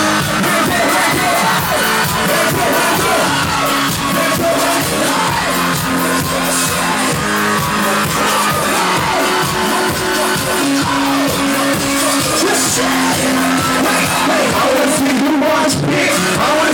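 Loud live rap music from a concert, with a steady heavy beat, a performer's voice and a crowd yelling along.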